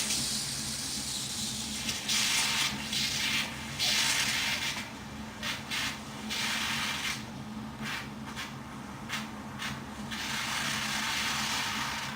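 Fermenting homebrew beer releasing carbon dioxide as it works, with irregular hissing, bubbling bursts of gas, some short and some about a second long, over a steady low hum.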